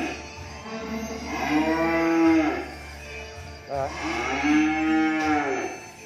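Cattle mooing: two long moos that each rise and then fall in pitch, the first about a second in and the second just before four seconds in.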